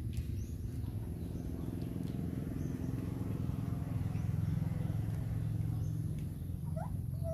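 A low engine hum that swells to its loudest midway and then eases off, with a short rising squeak near the end.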